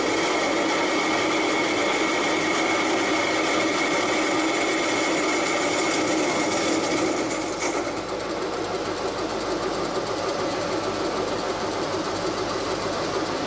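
CNC turning lathe running: a steady machine whir with a high whine over a lower hum. About eight seconds in the whine fades and the sound becomes slightly quieter.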